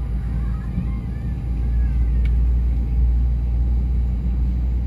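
Steady low rumble of an Airbus A320's CFM56 jet engines at idle, heard inside the cabin as the aircraft taxis. The rumble swells slightly about a second and a half in.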